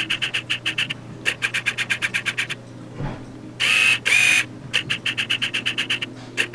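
Phone ringtone: a repeating electronic pattern of two longer tones followed by fast chirping trills, coming round about every five seconds, signalling an incoming call.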